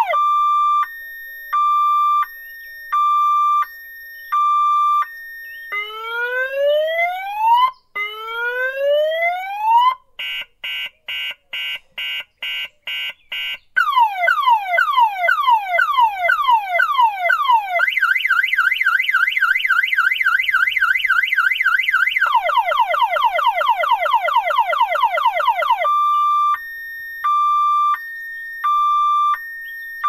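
Electronic car alarm siren cycling through its tone patterns. It starts with beeps about once a second, then two slow rising whoops, a rapid pulsing tone, fast repeated falling chirps, a quick high warble and more falling chirps, and ends with the steady beeps again.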